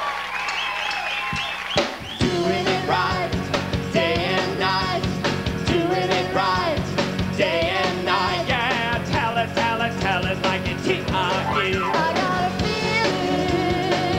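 Audience whoops and cheers, then about two seconds in a live rock band starts the song with a hit on the drum kit: drums, bass, guitar and keyboards with a woman singing the lead.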